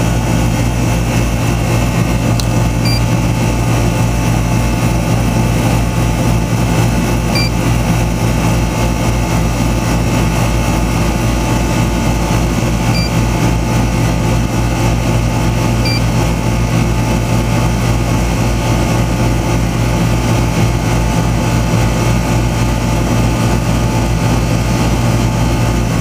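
Outdoor air-conditioner condensing unit running steadily, its compressor humming under the condenser fan's rush. The R22 system is low on refrigerant and is drawing in a charge.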